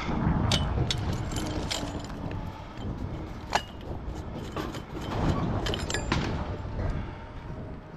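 Scrap metal pieces being handled and set down, giving a series of light metallic clinks and knocks. The sharpest is a ringing clink about three and a half seconds in. A low steady rumble runs underneath.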